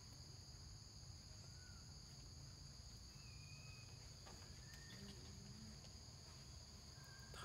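Faint steady chorus of insects, a continuous high-pitched drone, with a few short bird chirps scattered through it.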